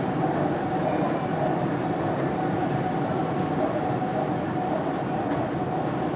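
Stockholm metro train running steadily along the track, an even rumble with a faint steady hum.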